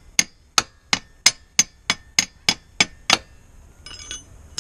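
Rapid sharp taps, about three a second, on the carburetor of a 49cc two-stroke mini dirt bike, knocking at it to free a float that may be stuck. The tapping stops a little past halfway, and a ringing metal clang comes at the very end.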